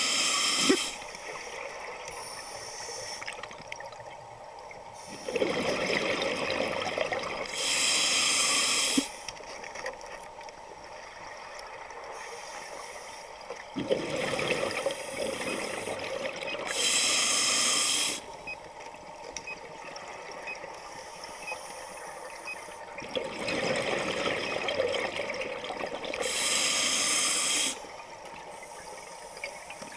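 Scuba diver breathing through a regulator underwater, heard three times: each breath is a bubbling rush followed by a steady hiss of air lasting about a second, with quieter gaps between.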